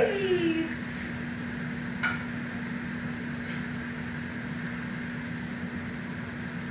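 A Savannah cat's meow falling in pitch and ending about half a second in. Then a steady low hum, broken by a short sharp click about two seconds in.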